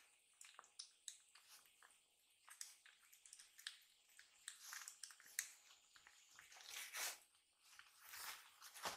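Kittens eating from bowls: faint smacking, licking and chewing, a run of small irregular clicks.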